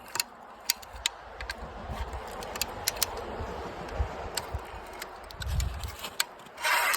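Irregular sharp metal clicks and rattles as the wire-pulling hardware is released from a freshly tensioned 9-gauge high-tensile wire, with a short rustling scrape near the end.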